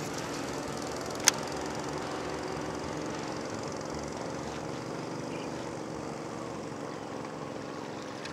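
Small engine running steadily at an even speed, with one sharp click about a second in.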